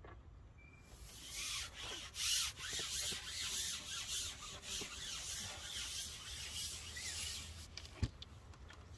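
Carbon fishing pole being slid back, a long rasping rub that swells and surges unevenly for several seconds, then one sharp knock near the end.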